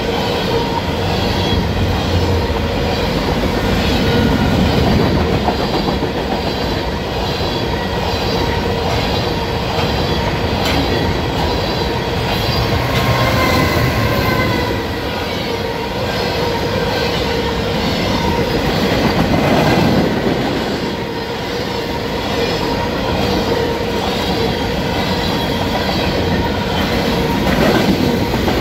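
Freight train's covered hopper cars rolling past in a steady rumble and clatter of steel wheels on rail, with a steady high tone running underneath. About halfway through, the mid-train GE ET44AC diesel locomotive passes, adding a deeper engine drone.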